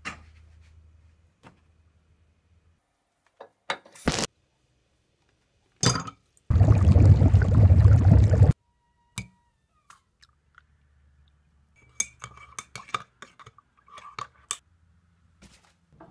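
A quick run of separate short sounds: clinks and knocks of dishes and glassware. About halfway there is a loud two-second rush of water bubbling around an electric coil immersion heater in a mug.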